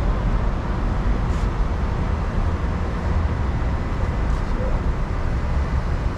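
Steady outdoor background rumble, heavy in the low end, with no distinct events.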